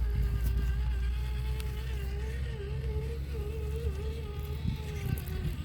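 Radio-controlled Traxxas TRX-4 Bronco crawler driving, its Holmes Hobbies brushless motor and geartrain giving a steady whine that wavers slightly in pitch with the throttle, over a low rumble.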